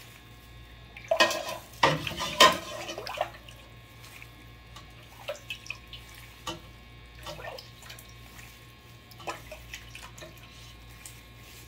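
Broth ladled over dry, crisp toasted flatbread pieces in a glass baking dish: splashing pours with sharp clinks and taps of the ladle. The loudest pours come between about one and two and a half seconds in, then smaller splashes and clicks.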